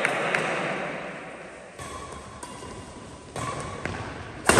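Badminton rally in an echoing hall: a few sharp racket-on-shuttlecock hits, the loudest just before the end, with a faint steady tone in the middle.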